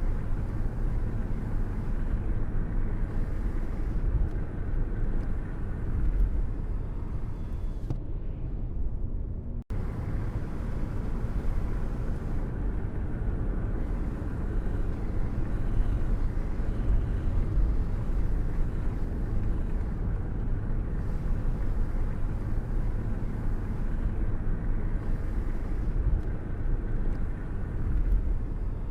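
Thunderstorm rain: steady rain with a deep, continuous rumble underneath. It cuts out for a split second about ten seconds in.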